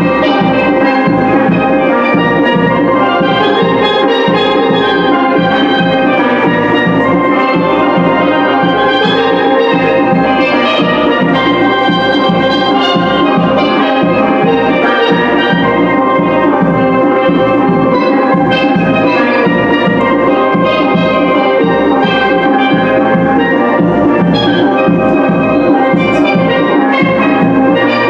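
Steel pan band playing live: several steel drums ringing out a melody and chords over a steady drum-and-cymbal beat.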